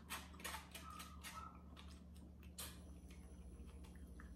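Faint eating sounds: irregular small clicks and taps of a fork working in a small cup of string beans, with chewing, thickest in the first two seconds. A low steady hum runs underneath.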